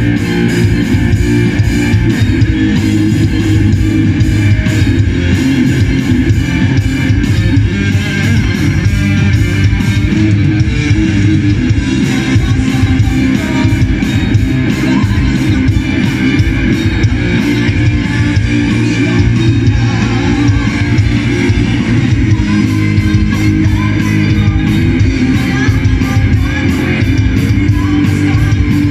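A live rock band playing loudly, electric guitar to the fore over bass guitar and a drum kit.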